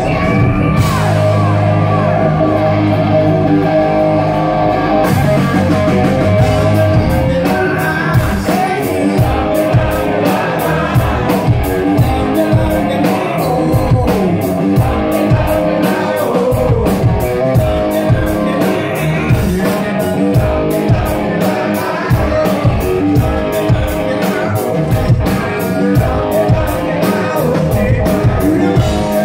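A live funk-rock band playing with a lead vocalist singing over electric bass, electric guitar and a drum kit. The opening seconds hold sustained chords, then the drums come in with a steady beat and cymbals.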